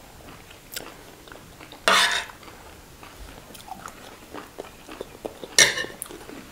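Eating at a table: metal spoons clicking and scraping on ceramic plates, with chewing. Two short, louder noises come about two seconds in and again near the end.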